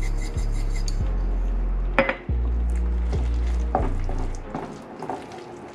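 Background music with a deep bass line that fades out about four seconds in, over a wooden spoon stirring and scraping refried beans in a frying pan, with a knock of the spoon against the pan about two seconds in.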